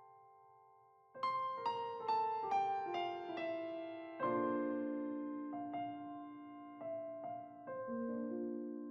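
Background music on solo piano: a chord dies away, then from about a second in a descending run of notes and sustained chords.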